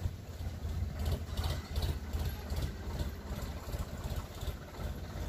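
Diesel tractor engine running at low revs with a steady low throb while it reverses a trolley.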